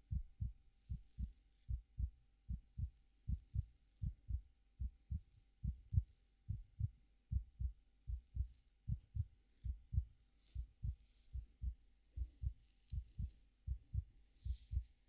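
A heartbeat thumps steadily in low, paired lub-dub beats. Over it come soft, irregular swishes of hair being stroked and played with.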